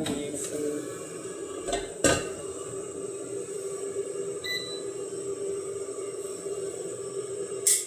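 A few sharp clinks of kitchenware over a steady hum. The loudest clink comes about two seconds in and another near the end.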